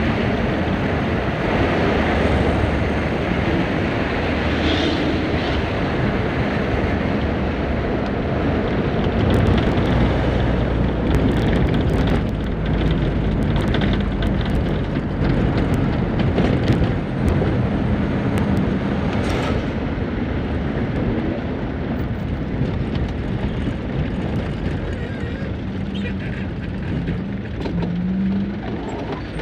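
A motor vehicle engine running with wind noise over the microphone; its pitch wanders and rises near the end as it revs.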